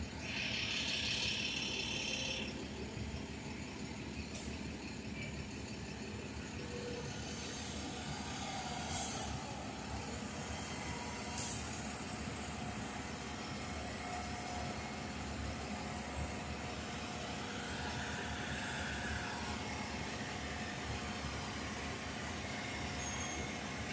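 Diesel-powered railroad maintenance-of-way machines running and rolling along the track, a steady low rumble. A hiss sounds in the first two seconds, and two short sharp clanks come in the middle.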